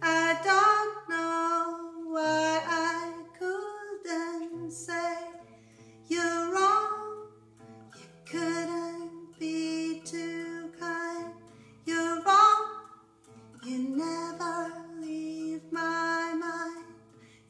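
A woman singing with an acoustic guitar accompaniment: sung phrases with long held notes, separated by short pauses, over low guitar notes.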